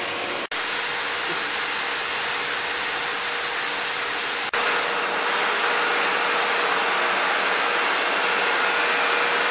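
Steady, loud machinery and ventilation noise in a destroyer's engineering spaces underway: an even roar with faint steady whines. It breaks off very briefly twice and is a little louder after the second break, about four and a half seconds in.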